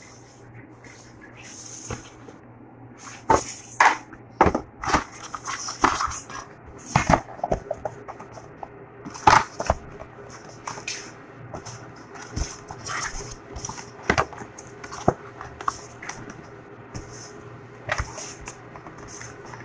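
Cardboard box inserts and dividers being handled and fitted into a packaging box: irregular taps, knocks and paper rustles, busiest in the first half, over a steady low hum.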